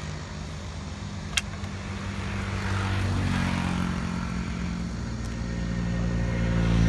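A motor vehicle's engine running and growing louder toward the end as it passes. One sharp click about a second and a half in.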